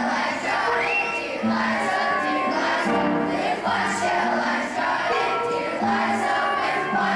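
Children's choir singing with musical accompaniment.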